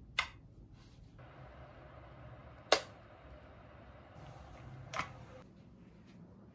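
Rhinox drip electric kettle's switch lever clicking sharply three times, the middle click the loudest, with a faint hiss between the clicks.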